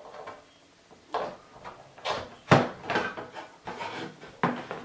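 Clicks and knocks of hard plastic as power cords are plugged into a power strip and handled inside a plastic cable management box. It comes as a handful of short, sharp knocks, the loudest about two and a half seconds in.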